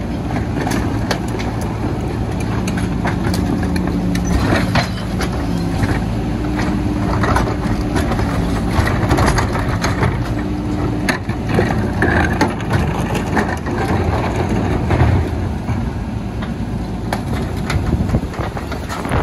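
Rear-loader garbage truck running at the curb while trash is loaded and compacted: a steady engine and hydraulic hum that fades about eleven seconds in, with repeated knocks and clatter of bags and debris in the hopper.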